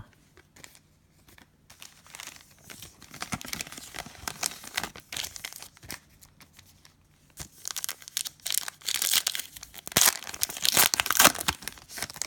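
Plastic trading-card pack wrapper being torn open and crinkled by hand, in two bouts of crackling, the second one louder.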